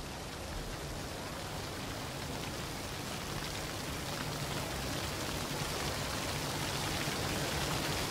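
Water of the Trevi Fountain splashing and running over stone, picked up close by a handheld microphone: a steady rushing hiss that grows slowly louder.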